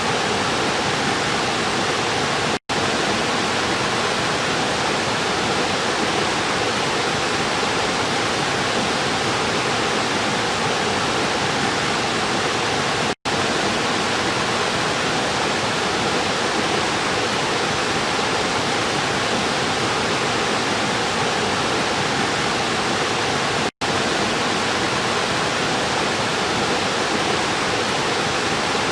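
River water rushing steadily in a dense, even rush. The sound drops out to silence for an instant three times, about ten seconds apart.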